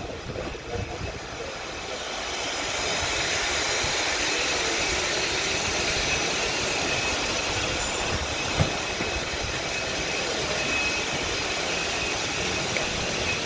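Historic Formula 1 cars' engines heard at a distance around the circuit: a steady drone that swells about two seconds in and then holds level, with one sharp click near the middle.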